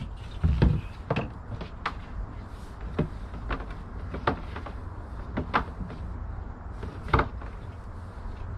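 Scattered clicks and knocks of a plastic gas can and fuel hose being handled and connected, with a low thump about half a second in and a sharp knock near the end, over a steady low rumble.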